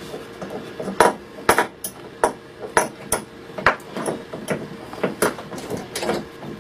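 About a dozen sharp knocks and metallic clinks, irregularly spaced, as a wooden block is set and clamped in a small cast-metal bench vise and the vise's sliding handle bar is worked.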